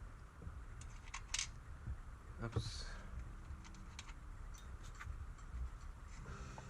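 A few light clicks and taps of small metal parts being handled: rivets and armour pieces knocking together, the sharpest clicks about a second in.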